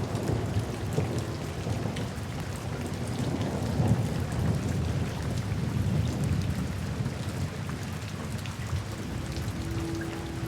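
Steady rain falling, with a low rumble underneath that swells about four seconds in.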